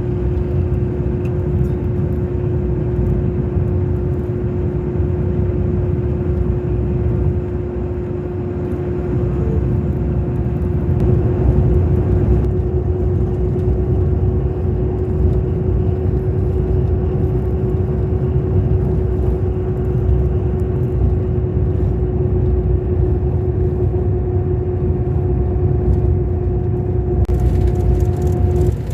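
Scania K400 Euro 5 diesel bus engine running steadily under way, a continuous low rumble with a constant whine over it. A second, higher whine joins in the later part, and both whines stop just before the end.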